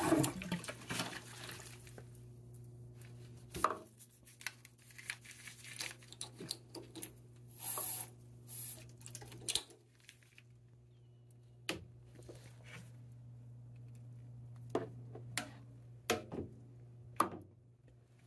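A steady low hum with scattered light clicks and taps.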